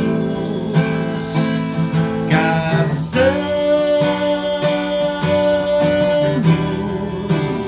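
A Yamaha FG-150J steel-string acoustic guitar strummed as accompaniment to a man singing. About three seconds in, he holds one long sung note for about three seconds.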